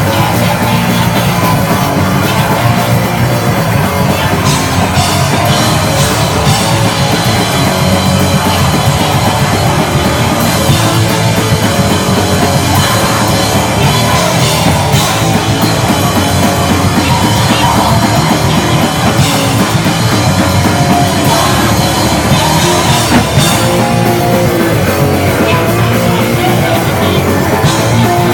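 Punk rock band playing live and loud: electric guitar and drum kit going without a break.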